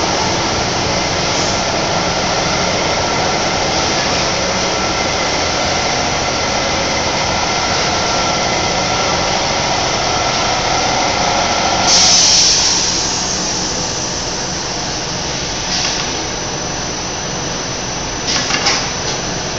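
Tissue paper production-line machinery running with a steady mechanical noise. About twelve seconds in a short burst of hiss comes, after which the running is slightly quieter. A few short clatters come near the end.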